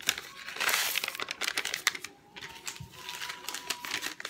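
Crinkling and rustling of onion soup mix packets being handled and opened, in two runs of rustles with a short lull about two seconds in.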